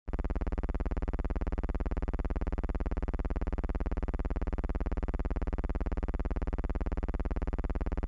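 A steady low buzzing drone that starts abruptly and holds unchanged, with a fast, even flutter.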